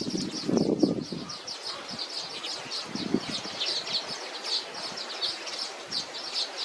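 Small birds chirping rapidly and continuously in a dense chatter of short high notes. There is low rustling in the first second or so and a soft thump about three seconds in.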